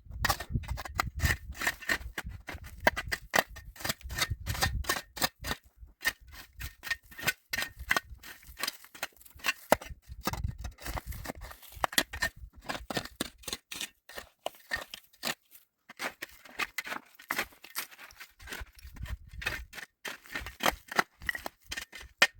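Rapid, irregular sharp clicks and knocks, several a second, with a low rumble of wind on the microphone at times.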